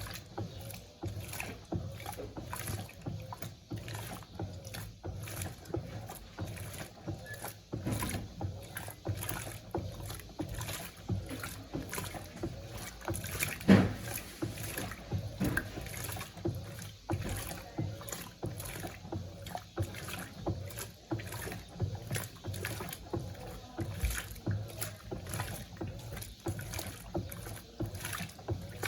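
Electrolux LTC07 top-load washing machine agitating towels in a pre-wash on its low water level: rhythmic sloshing and churning of water and wet towels, about two pulses a second, with one louder knock about halfway through.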